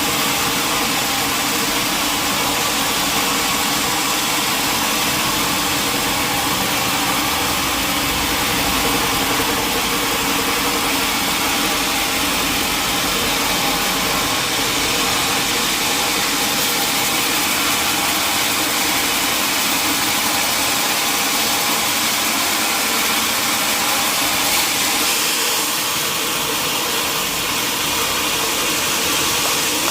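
Sawmill machinery running steadily: a motor's constant hum under a bright, even hiss, with no breaks or distinct impacts.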